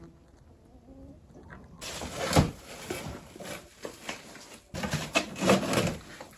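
Quiet for the first couple of seconds, then rustling and irregular knocks and clatter as household clutter (paper bags, a bucket, tools) is rummaged through by hand.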